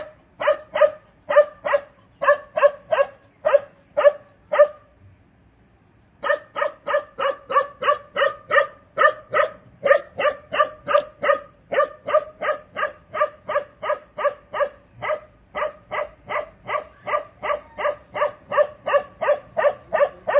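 Young Bakarwal dog barking over and over, fairly high-pitched, about two to three barks a second. The barking stops for about a second and a half around five seconds in, then starts again as an unbroken run to the end.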